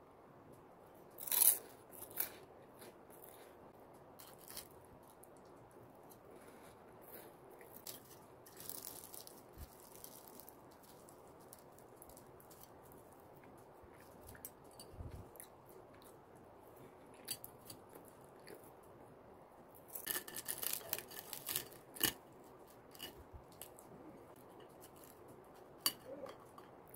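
Knife and fork cutting through flaky, crisp laminated pastry on a plate: scattered faint crackles and crunches of the layers with light clicks of the cutlery, and a denser run of crackling about twenty seconds in.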